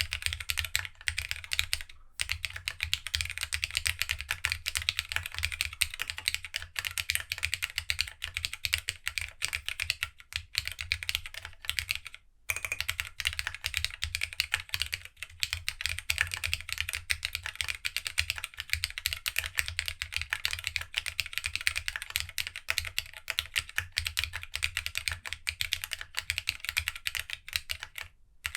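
Fast, continuous typing on a Geonworks W1-AT mechanical keyboard built plateless on Tadpole 90a mounts with no foam, fitted with Tohsi GSA-profile keycaps. A dense run of key clicks, each with a low thock underneath, breaks off briefly about two seconds in and again about twelve seconds in.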